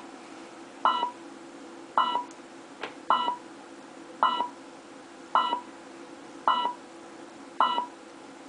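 Alarm keypad beeping a short, single tone about once a second, the exit-delay countdown after the system is armed in away mode.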